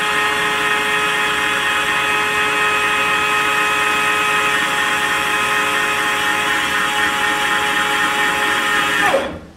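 The small electric motor of a Ladies First automatic chicken door runs with a steady whine, driving the door up on its vertical screw rod. About nine seconds in the door reaches its limit switch, and the motor cuts off with a brief falling spin-down.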